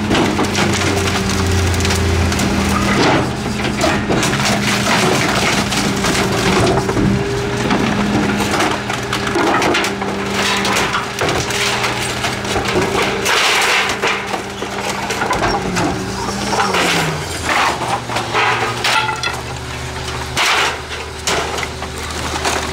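Rear-loader garbage truck's packer crushing bulky trash, with repeated sharp cracking and splintering of wood. Under it runs the truck's steady diesel engine note, which drops away about three-quarters of the way through.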